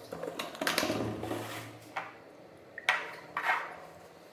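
A plastic reagent bottle being capped and handled on a lab bench, with a few light knocks and clinks of bottles and glass beakers set down on the bench.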